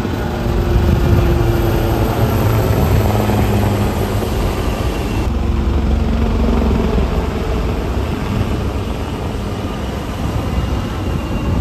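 Military helicopter flying overhead: steady rotor and turbine engine noise with a low hum and a few held tones that come and go.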